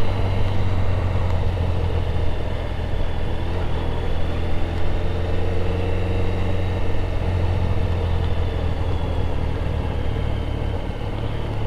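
Motorcycle engine running at low road speed, heard from on the bike: a steady low drone with some road noise, its pitch shifting slightly around the middle.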